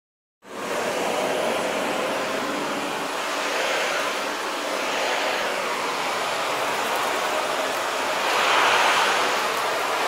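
Vacuum cleaner running: a steady rushing of air that starts abruptly about half a second in and swells louder near the end.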